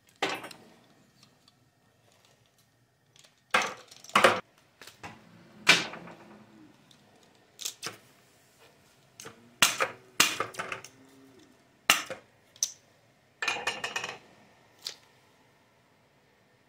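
Sharp metal knocks and clinks, about a dozen at uneven gaps, from a six-cavity bullet mold being worked by hand: the sprue plate knocked aside and the mold opened and tapped so the cast lead bullets drop into a bucket of quench water.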